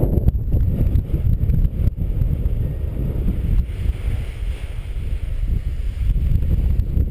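Strong wind buffeting the microphone of a helmet-mounted camera: a loud, low rumble that rises and falls with the gusts.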